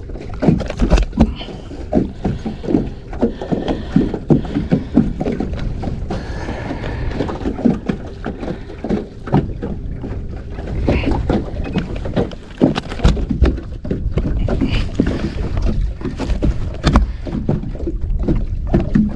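A redfish being handled on a carpeted boat deck over a landing net: many irregular soft knocks and thumps, over a steady low rumble of wind.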